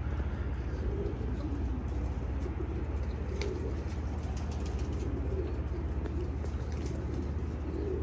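Domestic pigeons cooing repeatedly, over a steady low rumble.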